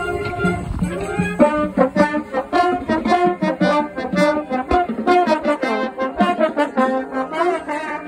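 Marching band brass playing, with trombones right beside the microphone. About a second and a half in, the held notes give way to a fast passage of short, quick notes.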